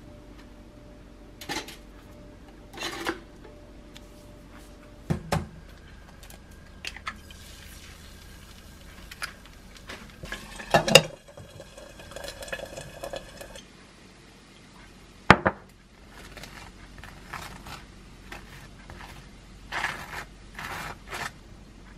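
Kitchen utensil noises while making toast and a fried egg: scattered clicks and knocks of pans and utensils, with a sharp clack about eleven seconds in and another about fifteen seconds in. An egg sizzles in a frying pan through the middle, and near the end a knife scrapes jam across toasted bread.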